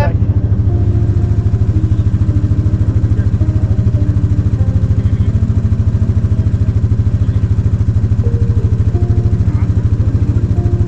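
An engine running steadily at idle, with an even, rapid low pulse.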